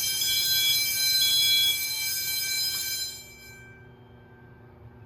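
Fire alarm bell ringing loudly, then stopping about three seconds in and ringing down as the system is reset.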